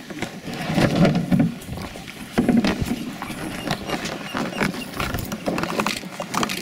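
Irregular knocks, clicks and rustling from a plastic grape-harvest hotte jostling right beside the microphone as it is carried on a walking porter's back.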